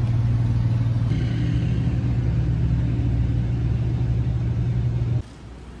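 A steady low mechanical hum, like a running motor or generator, that cuts off abruptly about five seconds in.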